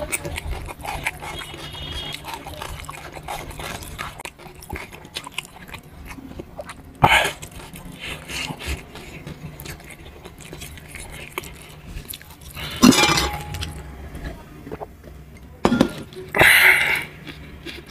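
Eating by hand from a stainless-steel plate: chewing and mouth noises, with small clicks and taps of fingers and food against the plate. Three short louder noises come about seven, thirteen and sixteen seconds in.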